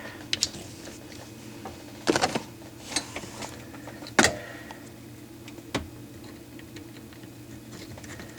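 Hose clamp on a dishwasher drain hose being tightened with a 5/16 nut driver: scattered small metallic clicks and clatters, a quick cluster about two seconds in and the sharpest click about four seconds in, over a low steady hum.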